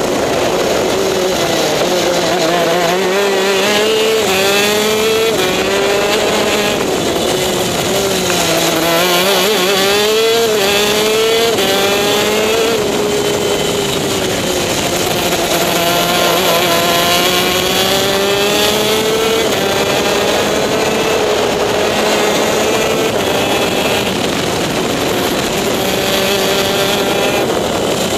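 TM K9C 125 cc two-stroke shifter kart engine at race pace, heard from on board the kart. Its pitch climbs and drops again and again as the kart accelerates, shifts gear and slows for the corners.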